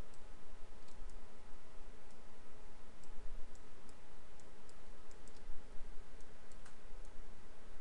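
Computer mouse clicking: about a dozen light clicks at irregular intervals while vertices are selected and dragged, over a steady hum and hiss.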